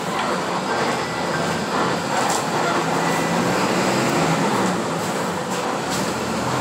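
Inside a Mascarello Gran Via / Volksbus 17-230 OD city bus on the move: the diesel engine and road noise make a steady rumble with hiss.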